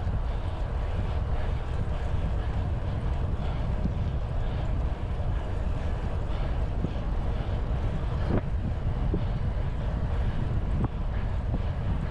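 Wind rushing over the microphone of a cyclist riding at speed, a steady low rumble with road noise beneath it.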